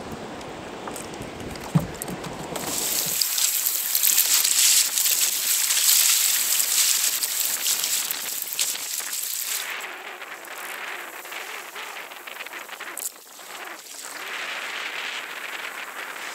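Choppy seawater splashing and hissing against a kayak hull, loudest a few seconds in and easing off in the second half. The first few seconds are a low wind rumble on the microphone with a single click.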